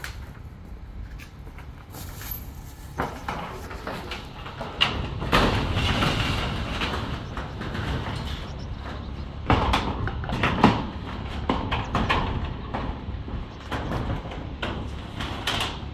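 Irregular knocks, clacks and scraping, with a few sharper clacks about five seconds in and again around ten seconds in.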